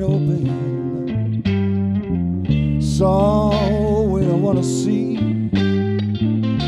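Live band playing: a male lead voice singing over electric guitar and bass guitar.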